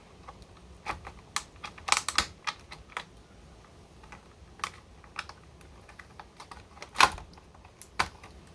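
Scattered clicks and light knocks of hands prying a staple out of cardboard packaging, loudest about two seconds in and again about seven seconds in.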